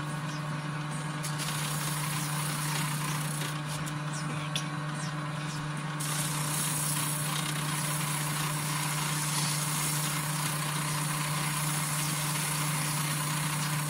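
Electric grinder running steadily, with a low motor hum and a continuous hiss as metal is worked against the wheel.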